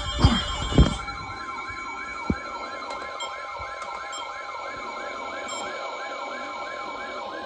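Electronic warbling alarm siren: a tone rising and falling about two to three times a second over steady held tones, with a few knocks in the first second.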